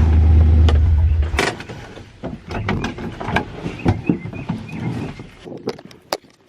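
A motor running steadily with a low hum, cut off suddenly about a second and a half in, followed by scattered clicks and light knocks.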